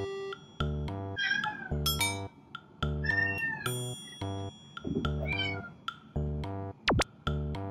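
A cat meowing three times, long wavering calls, over background music with a steady beat. Near the end there is a quick sweep down and back up in pitch.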